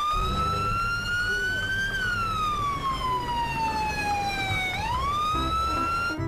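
Police siren wailing: the pitch climbs slowly, sinks slowly, then sweeps up quickly again near the end and cuts off suddenly.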